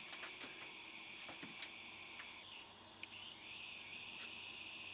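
A faint, steady high-pitched chirring, thinning briefly in the middle, with a few soft clicks.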